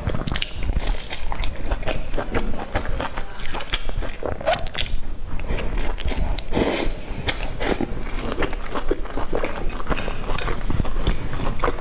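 A person biting and chewing sticky glazed pork up close to the microphone: a steady run of small wet clicks and smacks from the mouth, with a louder bite or slurp about two-thirds of the way through.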